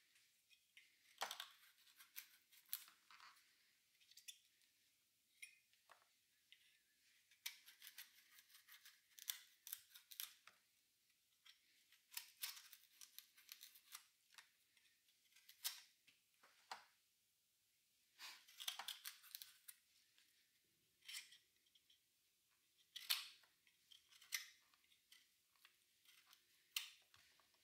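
Vegetable peeler scraping the skin off a raw butternut squash, quiet short strokes that come in irregular runs with brief pauses between.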